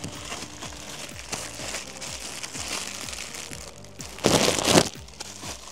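Crinkling rustle of merchandise being handled over background music playing in the shop; one loud crinkling rustle lasting under a second about four seconds in.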